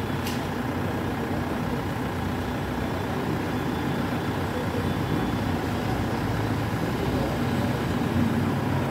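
Caterpillar 424B backhoe loader's diesel engine running steadily, with a sharp click just after the start.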